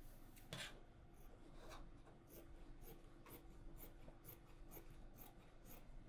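Scissors cutting through a paper pattern: faint, even snips about two a second, with a slightly louder click about half a second in.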